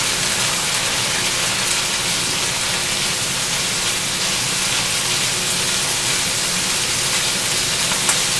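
Steady sizzling of black beans frying in a pan as a spatula stirs them, their liquid almost reduced away.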